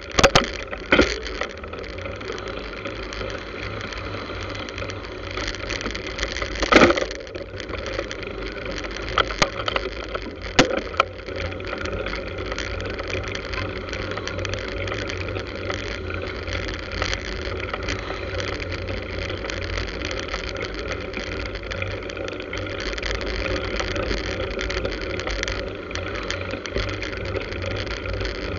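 Steady rushing wind and road noise on a bicycle-mounted camera riding in motorcycle and car traffic, with a deep rumble underneath. A few sharp knocks stand out just after the start, about seven seconds in, and twice around ten seconds in.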